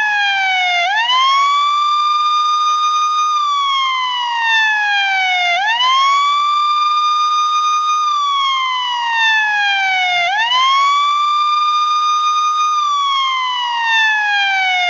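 Police siren sounding in a slow repeating cycle: a quick rise in pitch, held high for about two seconds, then a long slide back down, about every four and a half seconds.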